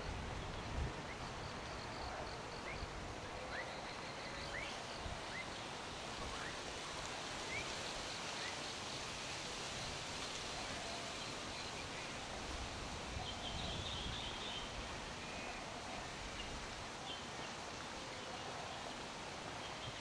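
Birds chirping faintly now and then, short high calls and brief trills, over a steady outdoor background hiss.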